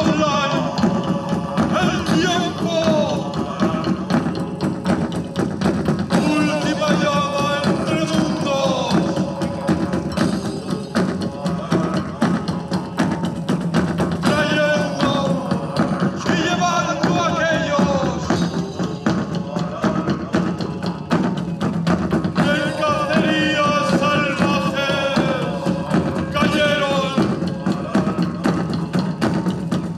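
Live music: a bending melody line in phrases of a few seconds over steady, busy percussion.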